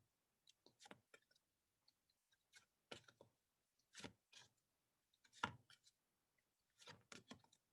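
Faint, irregular small clicks and taps over near silence, about a dozen, the loudest about halfway through, as sound cards are flicked through.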